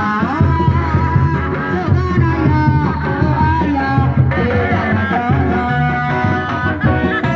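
Traditional reak music for a kuda lumping performance: a wavering, ornamented melody over a steady, repeating drum pattern.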